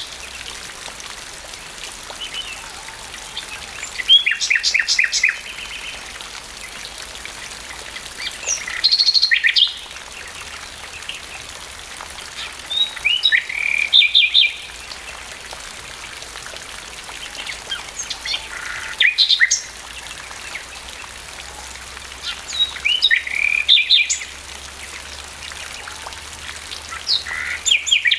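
A songbird singing short phrases of quick repeated notes every four to five seconds over the steady hiss of gentle rain.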